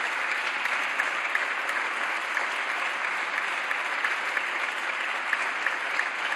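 Sustained applause from members of parliament in the chamber: dense, steady clapping of many hands.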